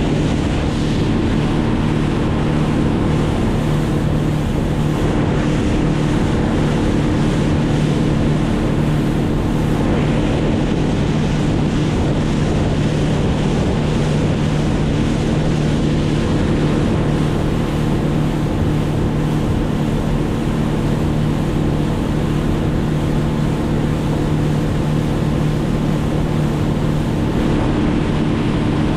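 An engine running steadily at one speed, with a rushing of wind and water over it.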